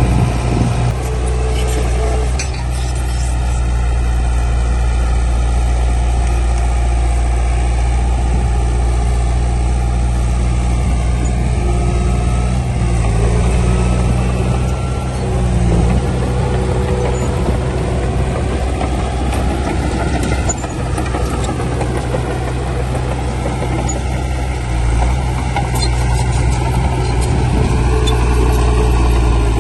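Heavy diesel engine of earth-moving machinery running steadily, its pitch shifting slightly a couple of times.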